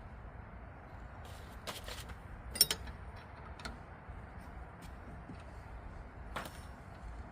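Hand tools working on the bolts of a rear brake caliper: a handful of sharp clicks and knocks, the loudest about two and a half seconds in, over a low steady rumble.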